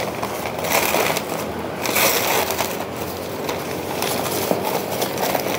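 Paper wrapping crinkling and rustling in irregular bursts as it is pulled away from a potted plant.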